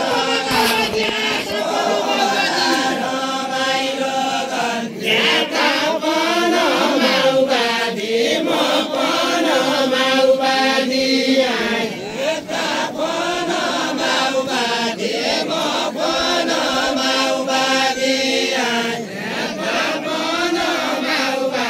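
Voices chanting in a sung, melodic line with long held notes.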